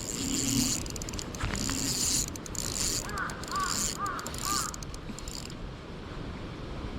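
Shimano Stella spinning reel running with a fast, high whir that stops about five and a half seconds in. A bird calls four times in quick succession about three seconds in.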